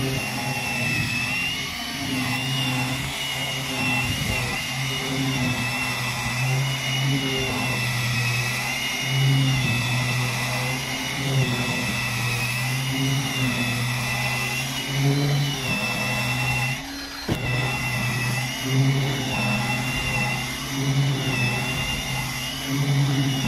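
Worx Multibrush WG441E power scrubber running, its electric motor spinning the brushes over a wet deck. A steady motor whine wavers in pitch as the load on the brushes changes. The sound drops briefly about seventeen seconds in.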